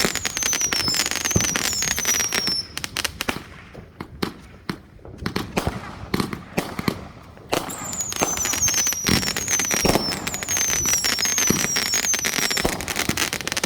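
Fireworks crackling and popping in rapid, dense volleys, with a string of short falling whistles over the top. About three seconds in the barrage thins to scattered bangs. Near the midpoint it picks up again with more whistles.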